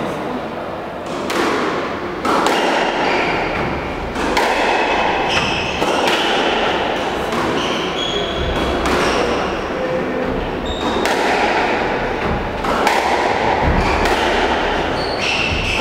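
Squash rally: the ball cracks off the rackets and thuds against the walls about once a second, each hit echoing in the court, with short squeaks from the players' shoes on the wooden floor between the hits.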